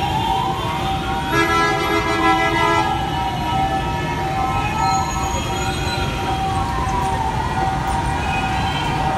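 An emergency vehicle's siren wailing, slowly rising and falling twice, over steady road-traffic rumble, with a vehicle horn blast about a second and a half in, lasting about a second and a half.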